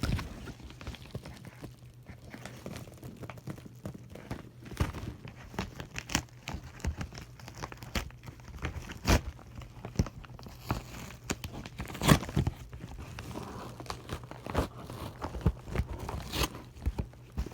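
Package wrapping being opened by hand: irregular crinkling, rustling and tearing with scattered sharp crackles, over a faint steady low hum.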